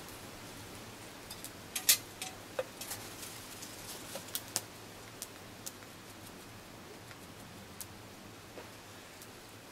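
Small campfire of twigs and sticks crackling, with scattered sharp pops, a loud cluster about two seconds in, growing sparser toward the end.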